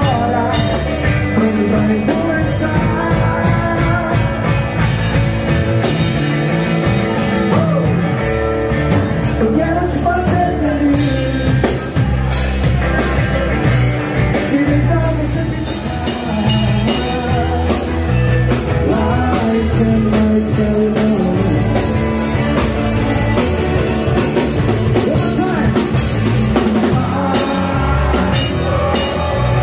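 Live rock band playing: electric bass, strummed acoustic-electric guitar and a drum kit keeping a steady beat, with a man singing in Portuguese over them.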